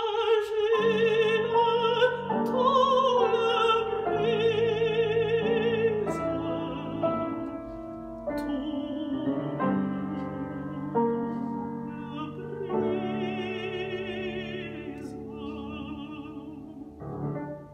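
Mezzo-soprano singing an operatic aria with wide vibrato, accompanied by grand piano. Near the end the voice stops and a last piano chord sounds and dies away.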